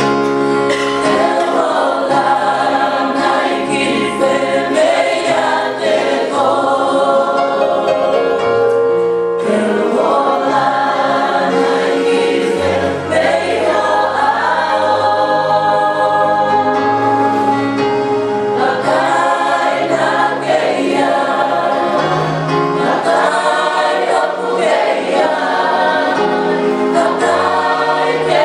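Choir singing a hymn in several voice parts, with long held notes.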